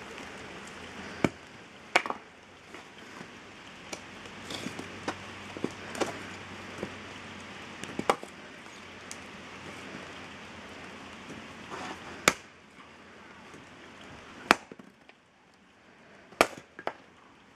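Axe chopping firewood: a series of sharp wooden knocks, irregularly spaced a second or more apart, as the blade is driven into small logs and splits them.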